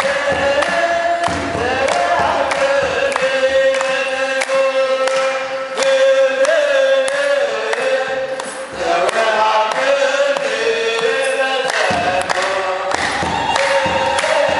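Orthodox Tewahedo congregation singing a hymn in unison, with a priest leading through a microphone, to steady hand clapping.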